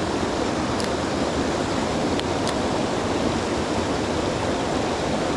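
Mountain stream water rushing steadily, with a few faint ticks.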